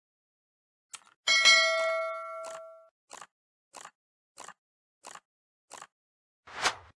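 Subscribe-button animation sound effects: a click about a second in, then a bright bell ding that rings and fades over about a second and a half. It is followed by five short swishes at an even pace and a louder whoosh near the end.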